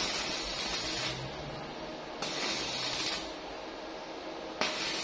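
Stick arc welding with a small 900-watt inverter welder: the arc sizzles and crackles in short runs of about a second each, struck three times, each starting sharply.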